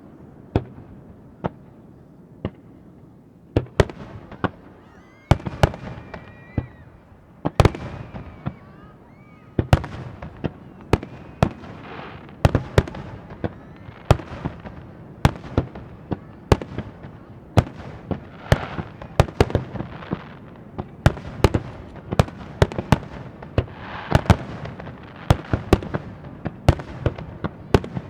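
Aerial firework shells bursting: a few separate bangs at first, then from about ten seconds in a rapid barrage of bursts, several a second, that keeps on to the end.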